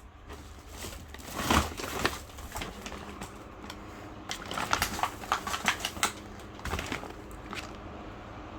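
Irregular clicks, taps and light knocks from hands handling a desk fan's plastic parts and packaging, over a low steady hum.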